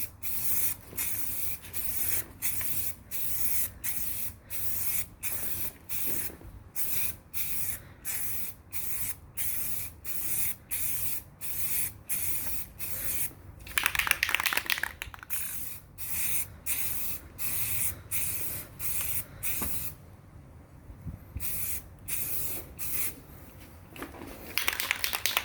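Aerosol can of Rust-Oleum 2X Ultra Cover paint and primer spraying in short hissing puffs, about two a second, as a coat of black paint goes on. A louder, busier burst comes about fourteen seconds in and another near the end.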